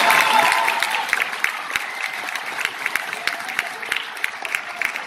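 Audience applauding, the clapping thinning out and growing quieter as it goes on.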